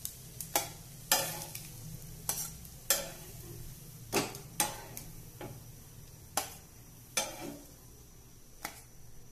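Steel spatula clinking and scraping against an iron tawa and a steel plate as shallow-fried potato patties are lifted off the griddle, about a dozen sharp clinks, over a faint sizzle of hot oil.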